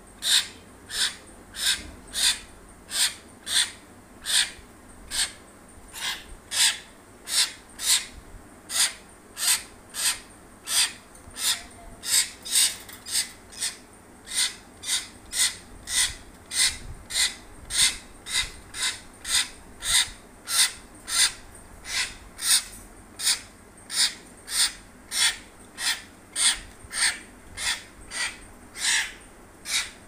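Hill myna giving a harsh, rasping call over and over at a steady pace, about one and a half to two calls a second.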